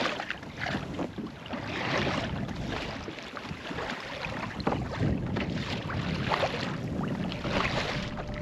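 Water splashing and lapping against the hull of a Hobie Compass pedal kayak under way, in surges every second or two, with wind buffeting the microphone.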